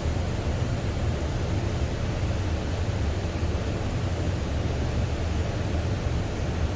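Steady rushing hiss over a low rumble from compressed-air spray painting: a spray gun laying primer surfacer to build a coarse crimped texture, with the air compressor running.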